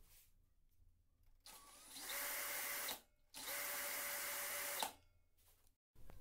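Cordless drill spinning an old angle grinder's gear head and the wheel fixed to it, run twice for a second or so each with a short break between. Both runs are a steady whirring hiss with a constant whine.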